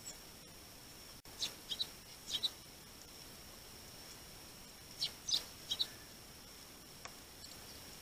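Sparrows chirping: two short clusters of quick high chirps, one about a second and a half in and another about five seconds in.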